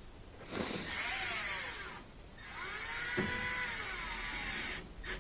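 Cordless drill/driver running in two bursts as it tightens the hose clamp back onto the washer's drain pump hose, its motor whine rising and falling in pitch with a short pause between.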